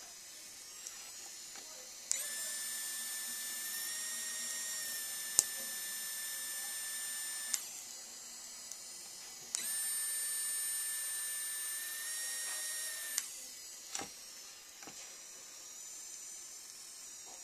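3Doodler 3D printing pen's filament drive motor running with a steady high whine in two spells of about five and four seconds while it extrudes plastic, each starting and stopping abruptly with a click. A quieter steady hum and a few light clicks lie between the spells.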